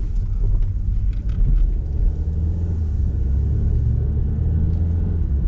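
Car being driven, heard from inside the cabin: a steady low engine and road rumble, with a few faint light clicks over it.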